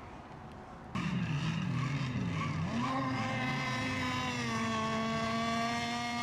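An RC racing boat's motor starts suddenly about a second in, wavers in pitch for a couple of seconds, then settles to a steady running note.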